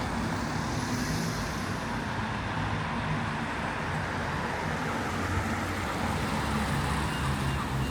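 Steady road traffic noise, vehicles running past on a busy town street.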